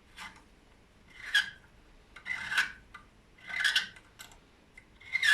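Hand-turned 30-degree valve seat cutter rasping against a valve seat in a Yamaha XJR 1200 cylinder head, in short scraping strokes about once a second. It is trimming the seat's contact band from the inside.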